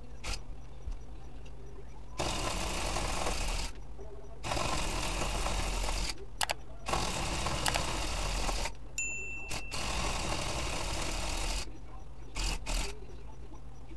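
A handheld electric tufting gun runs in bursts, rapidly punching yarn through the tufting cloth as it is steered along an outline. There are four runs of one and a half to two seconds each with short pauses between them, then two quick short bursts near the end.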